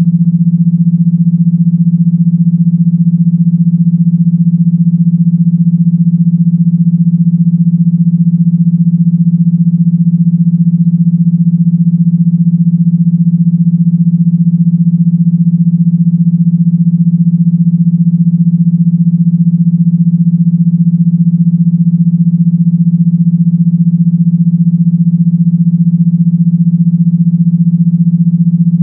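Loud, steady electronically generated low buzzing tone, holding one deep pitch without change. It is a speaker-vibration tone of the kind played to shake water out of a phone speaker.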